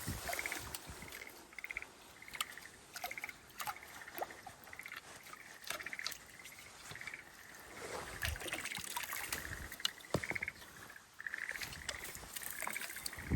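Frogs calling in a wetland: a long series of short, pulsed croaking notes repeating about twice a second, with scattered clicks and a trickle of water.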